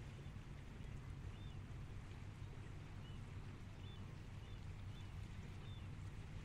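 Faint shoreline ambience: a low, steady engine hum under a soft wash of water, with short high bird chirps about half a dozen times.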